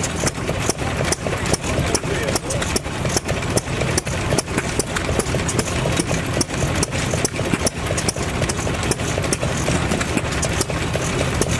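Lister D single-cylinder stationary engine running steadily, belt-driving a small Lister water pump. It has a quick, even, regular beat of sharp knocks.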